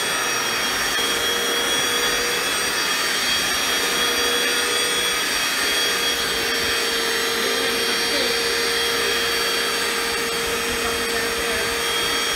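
Corded electric floor cleaner running steadily: an even motor and airflow noise with a constant whine.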